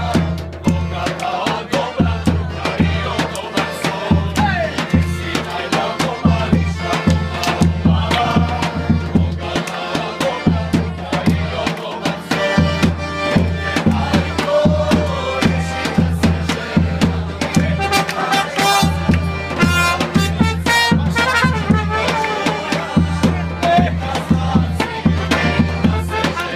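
Live Balkan brass-band music: accordion, saxophone and trumpet playing a dance tune over a steady beat.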